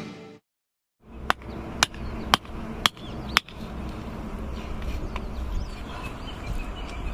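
Five sharp knocks in quick succession, about two a second, like a mallet or baton striking, then steady outdoor background with faint bird chirps.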